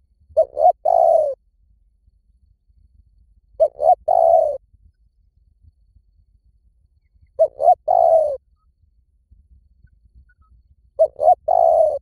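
Spotted dove cooing: four identical phrases about three and a half seconds apart, each two short notes followed by a longer drawn-out coo.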